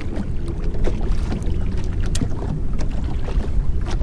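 A boat motor running steadily at slow trolling speed, with a faint steady hum and scattered light clicks over it.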